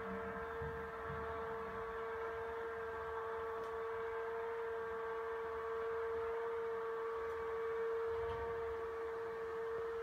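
Tubular motor of a motorized roller blind running steadily as it rolls the blind up: an even, pitched hum that holds the same note throughout.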